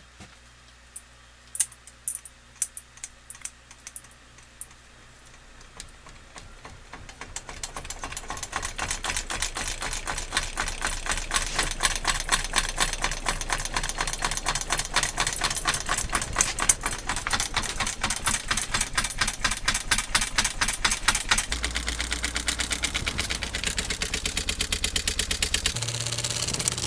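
Wobbly ceiling fan spinning up: a few scattered clicks, then from about six seconds in a fast, even clicking rattle that grows louder as the fan gathers speed, over a low motor hum that shifts twice near the end.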